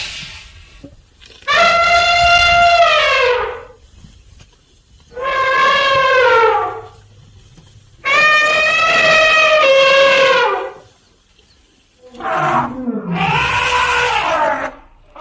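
Elephant trumpeting: three long, brassy calls, each dropping in pitch at its end. Near the end comes a rougher, harsher call.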